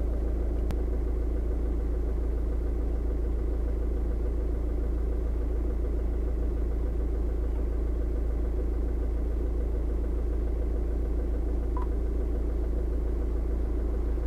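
Car engine idling: a steady low rumble heard inside the cabin. There is a single click about a second in and a short high beep near the end.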